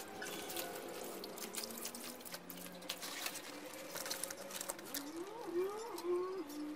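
Water splashing and dripping as a wet dip net holding catfish is emptied into a plastic bucket, with many small irregular splashes and patters. Faint steady tones run underneath, and near the end come a few rising and falling tones.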